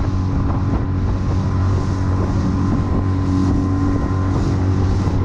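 Outboard motor of a small aluminium fishing boat running steadily at speed, a constant engine hum under the rush of water along the hull and wind on the microphone.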